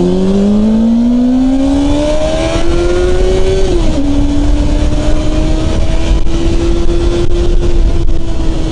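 Motorcycle engine accelerating, its pitch rising steadily for about three and a half seconds, then easing slightly and holding steady at cruising speed. Heavy wind rumble on the microphone lies under it.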